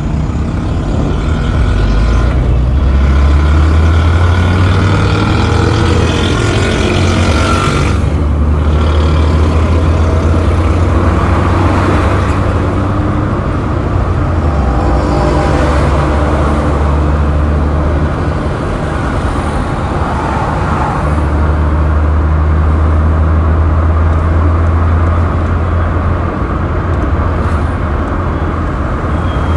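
Road traffic noise: a steady low rumble of vehicle engines and tyres with a continuous wash of road noise.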